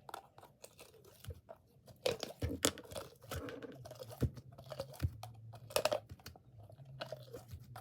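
Store-bought slime being dug out of its container: a run of irregular sticky clicks, crackles and squelches.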